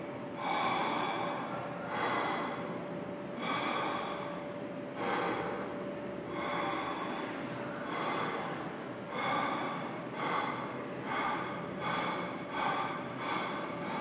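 Sound-art playback through the installation's loudspeakers: a series of breathy, hissing noise swells, about one every second and a half at first and coming faster near the end, over a faint steady tone.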